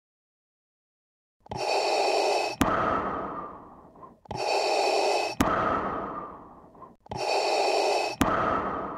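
Darth Vader's respirator breathing: three slow, mechanical breath cycles starting about a second and a half in, each a hissing intake, a sharp click, then a fading exhale.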